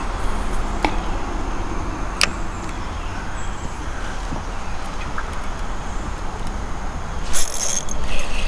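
Steady low rumble on the body-worn camera's microphone, with a few sharp clicks and a short loud rustle near the end, from handling the fishing rod and gear.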